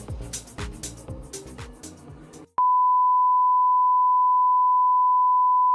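Background music with a steady beat fades, then is abruptly cut off about two and a half seconds in by a loud, steady beep: a single pure electronic tone held at one pitch.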